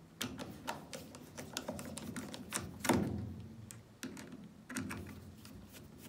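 Screwdriver undoing the screws that hold the water valves in a washing machine's plastic back panel: a run of irregular small clicks and taps, with a louder knock about three seconds in.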